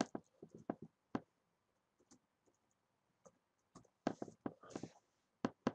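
Computer keyboard keystrokes as a password is typed: irregular runs of light clicks with short pauses, then two sharper single clicks near the end.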